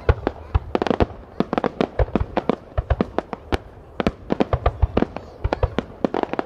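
Fireworks display: many aerial shells bursting in quick succession, a dense, irregular run of sharp bangs, several a second.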